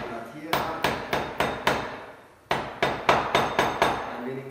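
Back of a metal ladle repeatedly striking black peppercorns on a wooden cutting board, crushing them. It makes sharp knocks about three to four a second, with a short pause about two seconds in.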